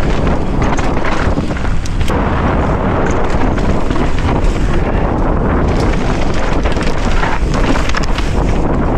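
Wind buffeting a helmet-mounted camera's microphone during a fast mountain-bike descent, over the rumble of tyres on dirt and loose rock. Frequent short rattles and knocks come from the bike jolting over bumps.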